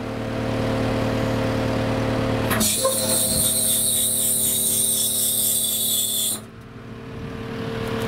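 CAT 262D skid steer's diesel engine running while its auxiliary hydraulics drive a scissor-lift attachment. About two and a half seconds in, a loud hiss of hydraulic flow joins the engine note and its pitch changes. The hiss cuts off suddenly nearly four seconds later, the overall sound drops sharply, then the engine note builds back up.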